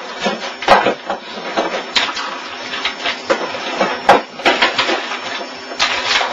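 Irregular clicks and knocks of a computer keyboard being tapped and struck impatiently, a few sharp hits standing out, the loudest about four seconds in.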